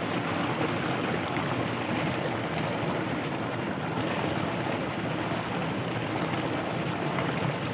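Floodwater rushing steadily through a field channel, a continuous even wash of flowing water.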